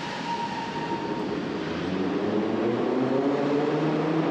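Metro train at the platform, its motors giving a pitched whine that rises slowly and grows louder from about two seconds in.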